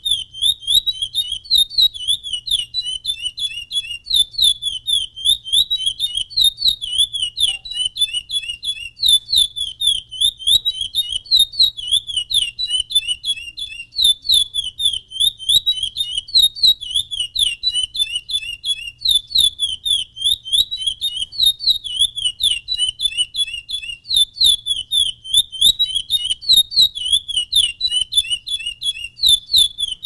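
Male chestnut-bellied seed finch (curió) singing its full song: fast, high notes strung into phrases that repeat without a break.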